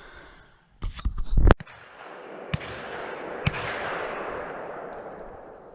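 Several sharp cracks in quick succession about a second in, then two fainter single shotgun reports about a second apart, over a rush of noise that swells and fades.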